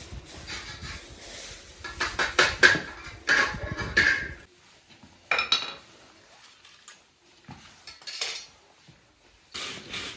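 Metal objects and tools clinking and clattering as they are handled and set down, with a busy run of knocks in the first four seconds or so, then a few scattered knocks.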